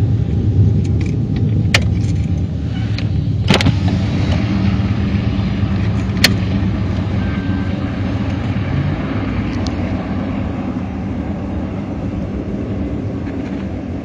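A car engine runs with a low, steady rumble that slowly fades. A few sharp clicks come over it.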